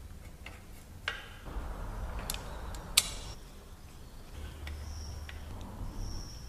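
Scattered sharp metallic clicks and ticks as a hex key and fingers work the mounting bolts of a Shimano hydraulic disc brake caliper; the loudest click comes about three seconds in, with two faint high rings near the end.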